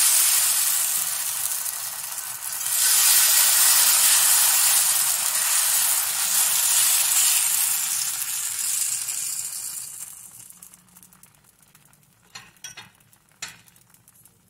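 Dosa batter sizzling loudly as it is poured onto a hot dosa griddle (tawa) and spread with a ladle, dipping briefly about two and a half seconds in. The sizzle dies away about ten seconds in, and a few light knocks follow near the end.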